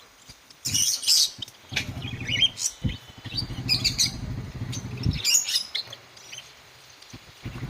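Java finches (Java sparrows) giving short, high chirping calls in several separate bursts, with a low hum underneath for a few seconds in the middle.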